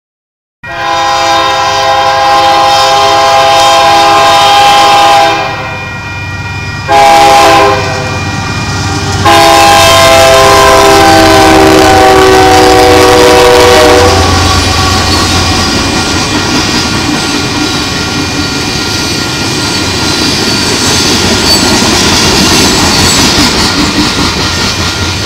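Union Pacific diesel locomotive's multi-chime air horn blowing a crossing-style sequence: two long blasts, a short one, then a long blast whose pitch sags slightly as the locomotive goes by. After that comes the steady rumble and wheel clatter of a coal train rolling past.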